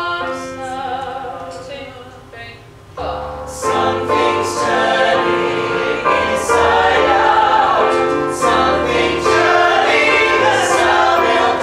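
A group of voices singing a musical-theatre song in harmony, with long held notes; the singing thins out briefly and then grows fuller about three seconds in.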